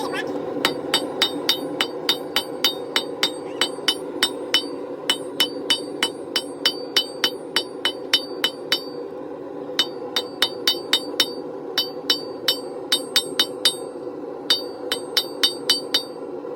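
Blacksmith's hammer striking steel on an anvil while forging a spike, about three ringing blows a second in runs, with short pauses about nine and fourteen seconds in. A steady rushing noise runs underneath.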